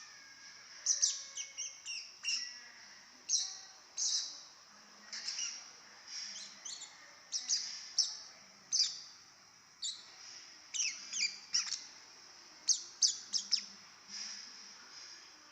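Baby lovebird calling over and over, with short, high-pitched chirps coming singly or in quick runs of two or three.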